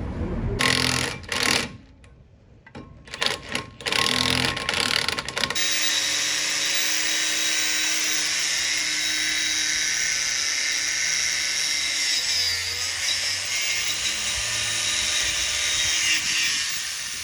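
Power tool running in a few short bursts, then steadily for about eleven seconds before fading near the end.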